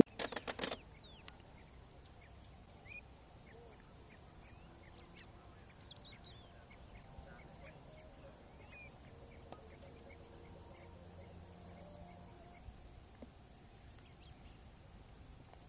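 Faint, scattered bird chirps and short calls across open grassland, after a brief burst of wind noise on the microphone at the very start.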